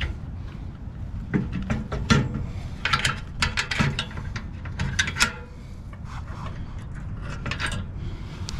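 Metal clinks and clanks of a steel aerator tow bar and hitch pin being handled and fitted against a lawn tractor's hitch plate: a scattered run of sharp clicks, thickest in the middle, over a steady low rumble.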